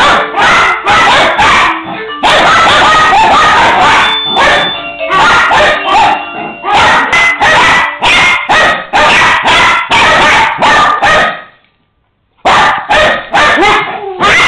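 Dog barking loudly and rapidly, several barks a second, with a brief pause about twelve seconds in.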